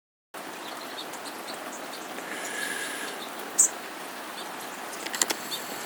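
Small birds feeding, giving short high chirps over a steady background hiss, with a held call partway through and one sharp, loud high chirp about three and a half seconds in. A quick run of clicks or taps comes near the end.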